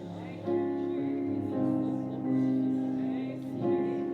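Keyboard playing slow, sustained chords that change every second or so.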